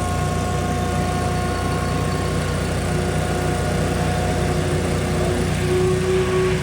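A 35 hp insulation vacuum running steadily, with a constant low engine hum and a whining tone on top that shifts pitch a little near the end.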